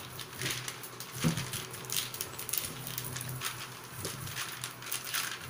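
Clear plastic sheet rustling and crinkling in short, irregular bursts as potato dough under it is rolled flat with a bottle used as a rolling pin.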